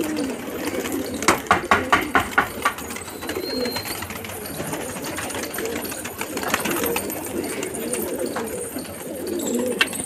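A flock of domestic pigeons cooing, with a quick run of about eight sharp wing claps a little over a second in as birds take off and land.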